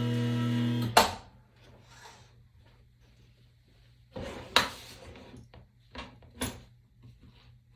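Intro music with held tones cuts off about a second in. Then come a few sharp knocks and clicks, the loudest about four and a half seconds in, with faint rustling between them.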